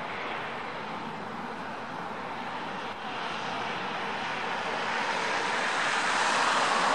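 Airbus A350 XWB on approach, its Rolls-Royce Trent XWB turbofan engines giving a steady rushing jet noise that grows louder as the aircraft comes nearer.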